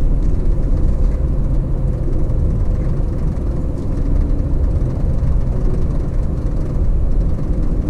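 Steady road and engine noise of a car driving at speed, heard from inside the cabin as a continuous low rumble.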